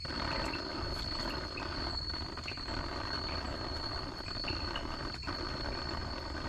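Liquid spattering onto the tent fabric in a steady hiss that starts suddenly, which sounds to the camper as if something were urinating on the tent. A steady high insect drone runs underneath.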